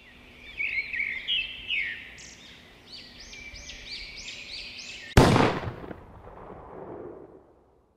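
Birds calling in a series of short chirps that rise and fall, then a single gunshot a little past five seconds in that echoes away over about two seconds.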